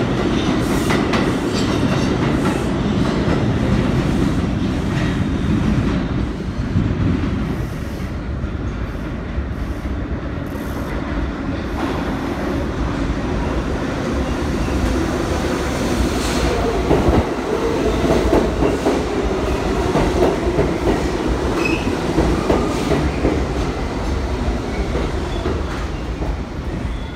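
New York City subway train on the Seventh Avenue line running along the platform, wheels clacking over rail joints, with some wheel squeal in the second half as it slows into the station.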